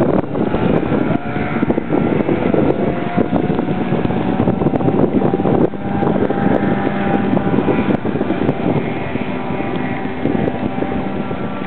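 Two small Johnson outboard motors, a 1971 9.5 hp and a 1982 15 hp, running hard as their boats race past. Their engine tone sags slightly in pitch as they go by.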